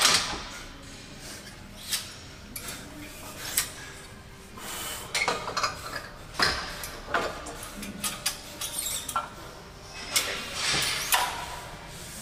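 Hard, gasping breaths from a lifter recovering under a loaded barbell partway through an all-out set of heavy squats, with a few metallic clinks from the bar and plates in the rack.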